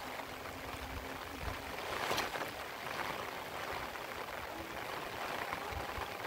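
Steady hiss of rain falling, with a short louder rush about two seconds in and a faint steady hum that fades out in the first second or so.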